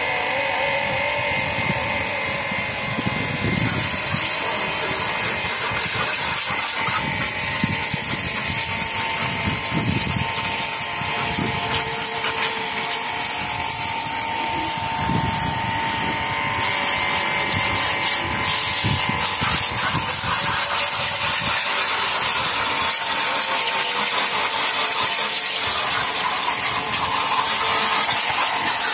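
1650-watt portable electric pressure washer running steadily: a constant motor whine over the hiss of its water jet.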